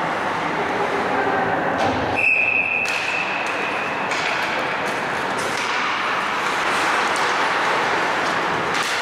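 Ice hockey rink ambience, a steady wash of skating and voices, with one long, high referee's whistle blast starting about two seconds in and fading out over the next few seconds.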